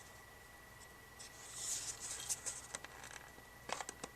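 A small black tin case being handled: soft rustling about a second and a half in, then a few light clicks and taps of the tin near the end.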